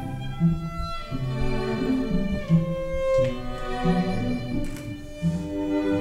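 Slow string music with long held notes, played as a wedding processional.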